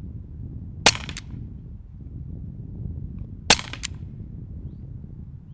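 Two shots from an Umarex Glock 17 Gen5 .43-calibre CO2 paintball pistol, about two and a half seconds apart. Each is a sharp crack trailed within a fraction of a second by a couple of smaller clicks. Beneath them is a low rumble of wind on the microphone.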